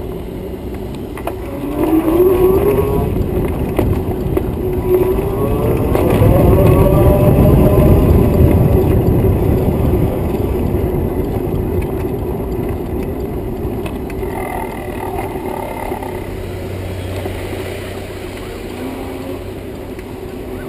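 Electric bike's motor whining and rising in pitch twice as the bike speeds up, the second rise the loudest, over steady rushing wind and tyre rumble.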